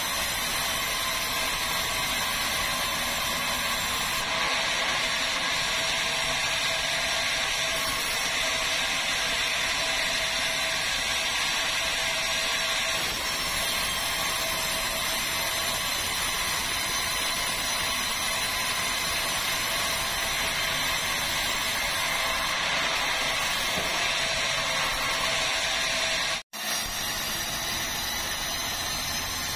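Sawmill band saw running steadily as its blade cuts through large red meranti timber: a continuous, hissing machine noise. It breaks off for a split second near the end.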